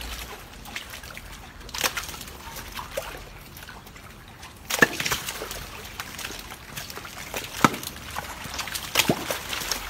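Farmed crocodiles scrambling over one another for food on a wet pen floor: water sloshing and trickling, with a handful of sharp knocks, the loudest about five seconds in and near eight seconds.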